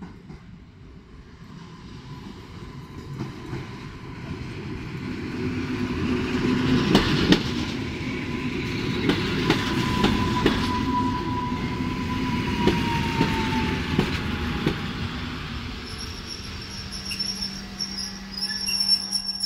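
Polregio EN57ALd electric multiple unit rolling in alongside the platform. The rumble grows as it nears, and the wheels click repeatedly over rail joints. A steady whine falls in pitch as the train slows to a stop, with a high, broken tone near the end.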